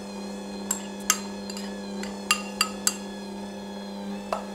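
Stand mixer running steadily, a motor hum with its flat beater turning in a stainless steel bowl, with about six sharp metallic clinks scattered through.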